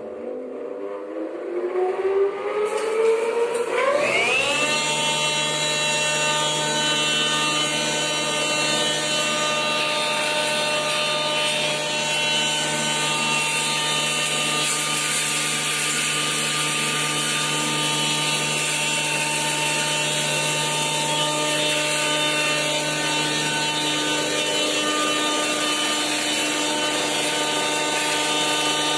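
Electric-motor, V-belt-driven beater pulverizer for grinding turmeric switched on: a rising whine as it spins up over about four seconds, then running steadily at full speed.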